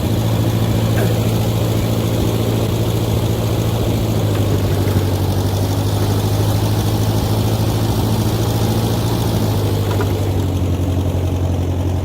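Massey Ferguson 50 tractor engine running steadily, a little louder from the start, while the three-point hitch won't raise: the owner guesses the hitch is froze up from the cold.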